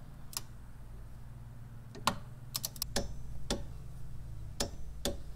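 A torque wrench clicking and ratcheting in sharp, irregular clicks as a brake line fitting at the rear caliper is tightened to 14 foot-pounds, over a steady low hum.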